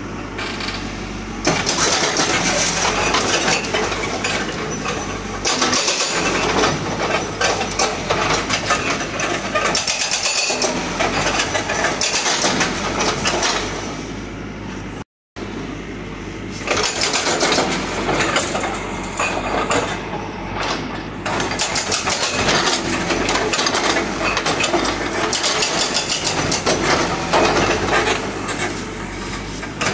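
Hydraulic breaker on a Cat backhoe loader hammering rapidly at brick and concrete rubble over the machine's running diesel engine. The hammering comes in long runs with short pauses, and the sound cuts out abruptly for a split second about halfway.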